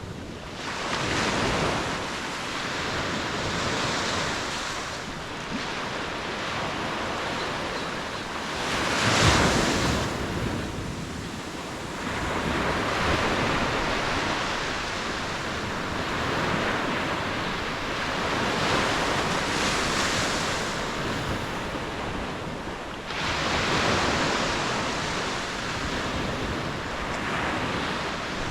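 Ocean waves breaking and washing on the shore in an unbroken hiss of surf that swells and ebbs every few seconds, the biggest surge about nine seconds in. Some wind buffets the microphone.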